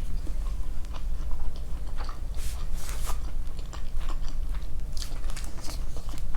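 Close-up chewing and biting: wet, irregular mouth clicks and smacks as a person eats a meal, over a steady low hum.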